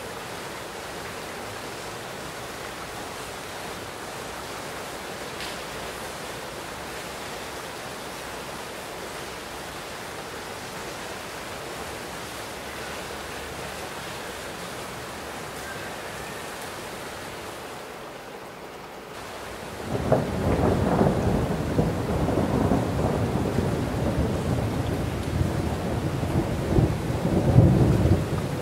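Steady heavy rain, then about two-thirds of the way through a long roll of thunder breaks in and rumbles on, loudest near the end.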